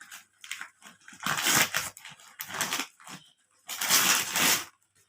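Gift wrapping being torn open and crinkled: scattered crackles, with two longer rips about a second and four seconds in.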